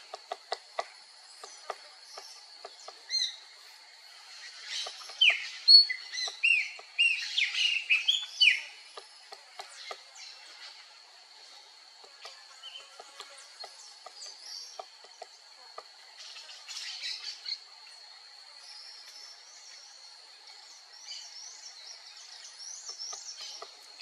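Crimson-crested woodpecker tapping and chipping at bark in light, irregular taps, against a steady high-pitched tone. A bird gives a run of loud falling chirps about five to nine seconds in, and softer chirps come near the end.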